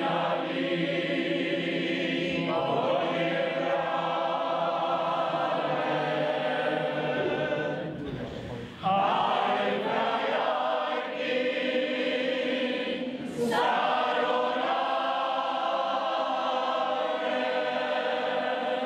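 Mixed choir of women's and men's voices singing a folk song unaccompanied, in long sustained phrases with short breaks between them.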